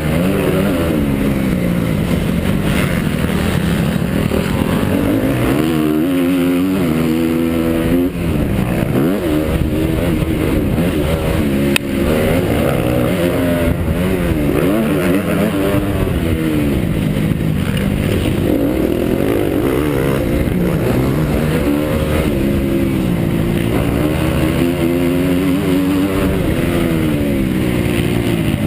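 Honda CRF250 four-stroke single-cylinder motocross engine under race throttle, revving up and falling back again and again as the rider shifts and rolls off around the track. There is a sharp knock about twelve seconds in.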